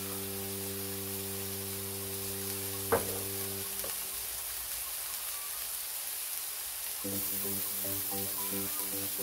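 Ground beef burger patties sizzling in cast iron skillets, with a single sharp knock about three seconds in.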